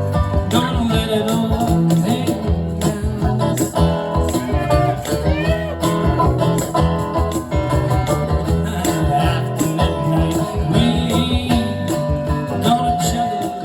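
Live band playing music, with guitar.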